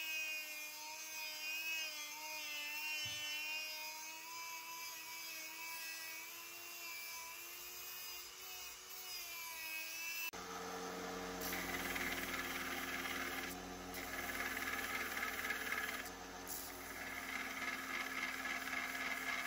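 Handheld rotary tool with a small sanding drum whining as it sands a brass piece, its pitch wavering as the pressure changes. About ten seconds in it gives way to a belt sander running, with louder grinding stretches as a small metal part is pressed against the belt.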